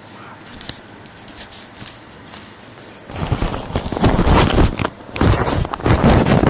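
Handling noise on a phone's microphone: faint clicks and footsteps, then from about three seconds in loud rumbling and rustling as the phone is swung around.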